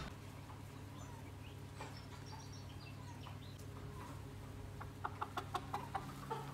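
Chickens clucking, with a quick run of clucks about five seconds in and scattered faint chirps, over a steady low hum.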